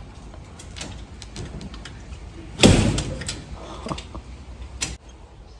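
Scattered light clicks and knocks, with one loud thud about two and a half seconds in and a smaller sharp knock near the end.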